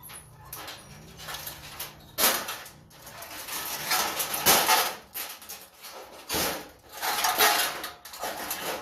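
Sheet-metal parts of a fluorescent light fixture clanking and scraping as the fixture is pulled apart by hand, with several loud knocks about 2, 4.5 and 6.5 seconds in.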